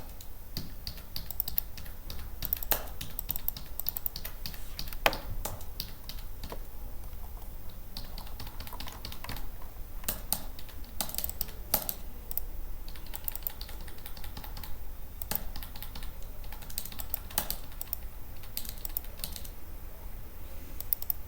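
Typing on a computer keyboard: irregular runs of key clicks with short pauses, over a low steady hum.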